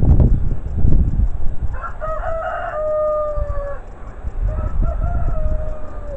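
A rooster crowing twice: a full crow about two seconds in that ends in a long held note, then a second, fainter crow near the end. Under both runs a steady low rumble with a few knocks.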